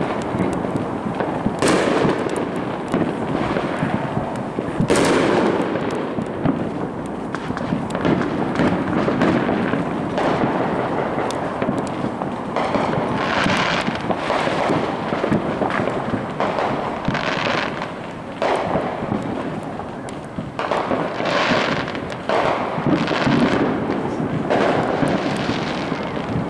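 Fireworks going off: sharp bangs about two and five seconds in, then a long run of crackling pops and rumbling over a steady noise bed.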